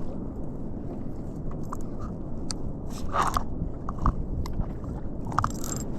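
Steady low rumble of wind and water on the microphone, with irregular clicks and scrapes of fishing reel and tackle being handled. The clicks cluster about three seconds in and again near the end.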